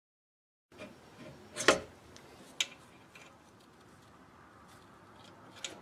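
A few sharp, separate metallic clicks and clinks from a screw-type spring compressor being set on the kickdown servo in the aluminium transmission case. The loudest click comes nearly two seconds in, with smaller ones about a second later and near the end.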